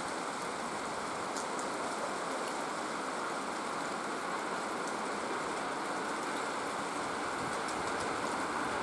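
Steady rain hiss mixed with the rolling noise of an approaching ER9M electric multiple unit, which grows a little louder near the end.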